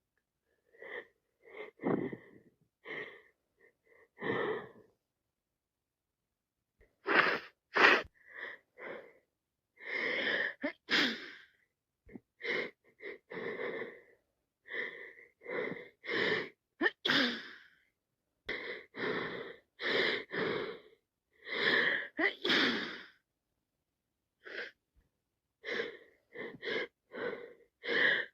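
A person with a head cold sneezing over and over in short bursts, with a pause about five seconds in.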